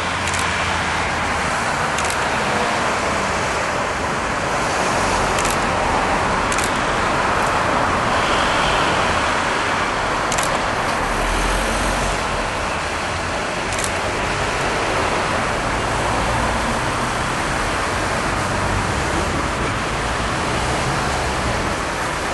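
Peppercorn A1 steam locomotive 60163 Tornado passing close beneath, heard as a steady rushing noise of steam and train, with a few short sharp clicks.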